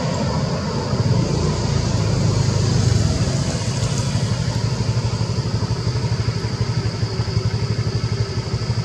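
An engine running steadily with a fast, even pulse, getting somewhat quieter near the end.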